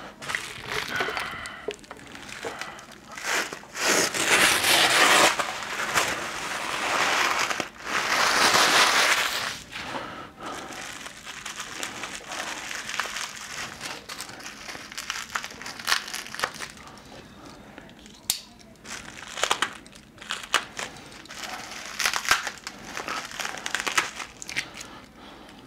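Silver plastic packing wrap crinkling and crackling as it is unwrapped by hand from a telescope's carry handle, with two louder bursts of crinkling in the first ten seconds, then lighter crackles and small clicks.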